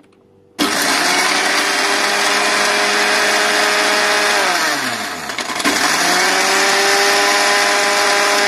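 Electric mixer grinder with a steel jar grinding Marie biscuits into crumbs. The motor starts suddenly about half a second in and runs at a steady high speed. It is switched off around the middle and winds down with a falling pitch, then starts again.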